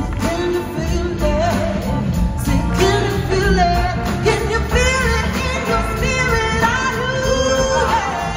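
Live blues-rock band playing: electric guitar, drums and bass under lead and backing vocals singing sustained, wavering lines.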